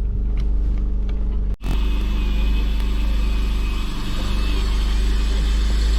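An engine running steadily at a constant speed, with a short break about a second and a half in.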